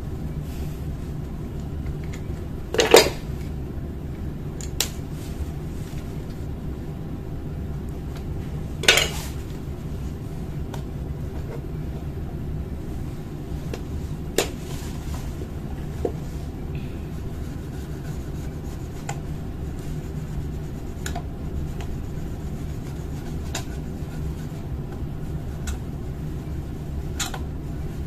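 Plastic clicks and clacks as a 49A/53A laser toner cartridge is taken apart by hand, with two louder clacks about 3 and 9 seconds in and lighter ticks after, over a steady low hum.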